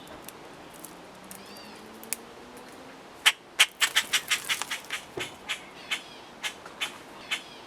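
A bird pecking at its food: a run of sharp taps starting about three seconds in, quick at first and then slowing to about two a second, with a few faint short chirps before it.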